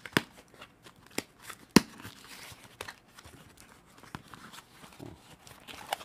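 Cardboard shipping box being opened by hand, its flaps pulled apart: a run of sharp cardboard cracks and rustling, the loudest crack about two seconds in.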